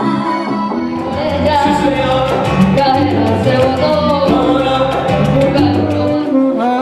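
Latin band music in a salsa style, with a stepping bass line, steady percussion and a sung melody.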